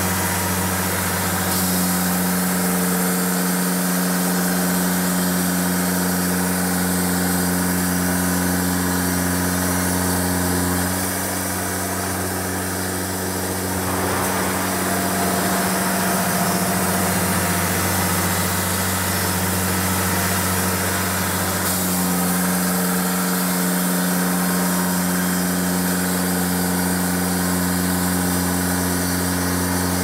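The 49 hp Yanmar diesel engine of a Cooks AC3649 portable bandsaw mill running steadily. Its note changes about a third of the way in and changes back about two thirds of the way in.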